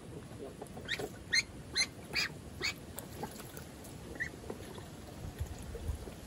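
Young ducks peeping: a quick run of about five short, high calls about a second in, then one more a little later, over low splashing as one duck bathes in a shallow tub of water.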